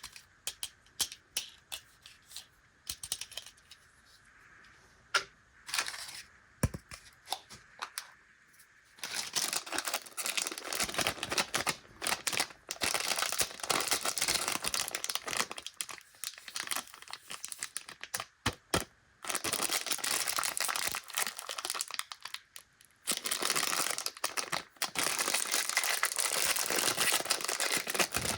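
Scattered light clicks and taps of packaging being handled, then from about nine seconds in, long stretches of plastic candy wrappers crinkling and tearing as the packets are opened.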